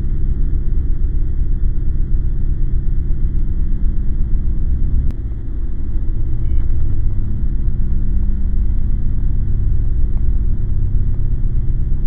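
A loud, steady low rumbling drone with a few held low tones, dipping briefly about five seconds in.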